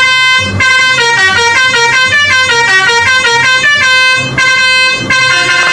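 Indonesian 'telolet' multi-tone bus horn playing a tune: a held chord of horn tones, then a run of notes stepping up and down for about three seconds, then the held chord again.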